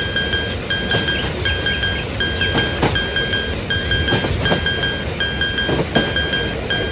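Railroad crossing warning bell ringing in a steady repeating ding, about one strike every three quarters of a second. Under it runs the noise of a passing train, with irregular wheel clacks.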